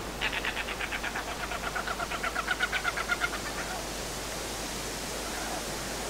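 Carnaby's black cockatoo calling: a rapid run of short notes, about ten a second for some three seconds, the notes falling in pitch as the run goes on. A steady hiss lies underneath throughout.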